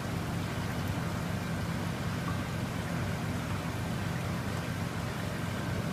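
Steady low motor hum with a constant hiss over it, unchanging throughout.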